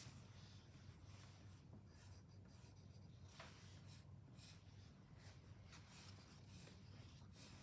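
Pencil lead scratching faintly on paper in a series of short, irregular drawing strokes.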